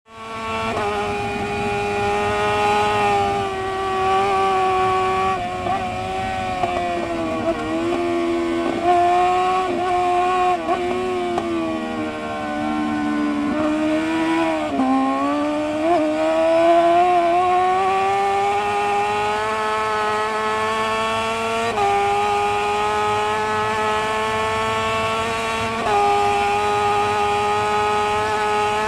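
Onboard sound of a Honda HRC superbike's inline-four engine at racing speed, with a steady rush of wind noise. The engine note drops twice as the rider shuts off for bends, a third and a half of the way in, then climbs steadily back up. It steps up sharply twice near the end.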